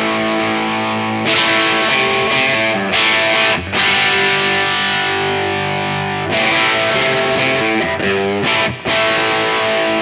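Electric guitar played through a NUX 63 Diamond overdrive pedal with its top boost turned up, giving a driven, aggressive Vox AC30-style crunch. Strummed chords ring out and change every second or two, with brief breaks about a third of the way in and near the end.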